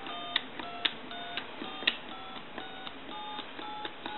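Touch-tone (DTMF) dialing on a novelty telephone's keypad: a quick run of short two-note dial beeps, about two a second, each a different pair of tones, with sharp button clicks on several presses. The dialing shows the phone's outgoing dial function working.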